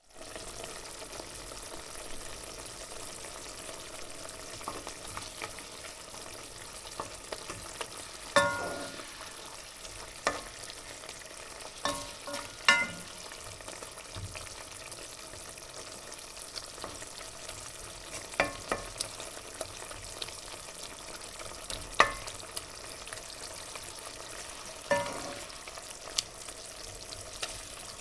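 Food deep-frying in hot oil: a steady, dense crackling sizzle. About eight sharp knocks, several ringing briefly, stand out over it, the loudest about a third of the way in and near the end.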